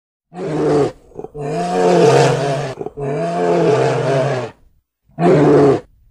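A large animal roaring: four calls in a row, a short one, two long ones of about a second and a half each, then another short one near the end.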